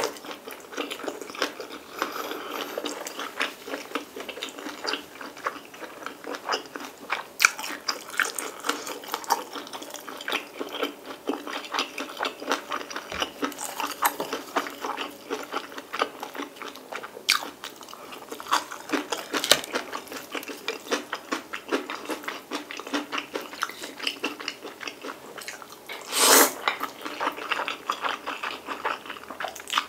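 Close-miked chewing and mouth noises of a person eating, many small wet clicks and smacks, then a louder slurp of noodles about 26 seconds in.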